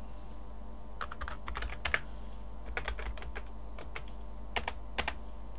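Typing on a computer keyboard: several short runs of keystroke clicks at an uneven pace, with gaps between them.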